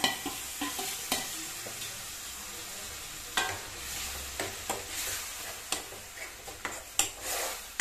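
Chopped tomatoes sizzling in hot oil and fried onions in a metal kadhai, with a spoon scraping and knocking against the pan as they are stirred. The steady sizzle is broken by sharp clicks of the spoon several times.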